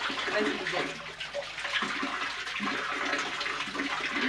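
Spring water running steadily from a small spout in a rock grotto and splashing below.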